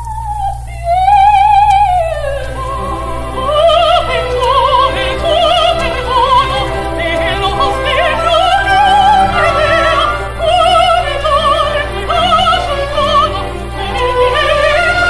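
Operatic duet for soprano and mezzo-soprano with orchestra, from an old live recording. One voice sings alone at first; from about two seconds in both voices sing together, each with wide vibrato, over steady accompaniment and a constant low hum.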